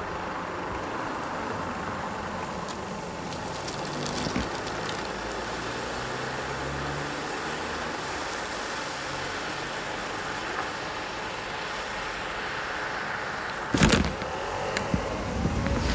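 Road traffic at an intersection: a steady hum of car engines and tyres, with a short loud knock about fourteen seconds in.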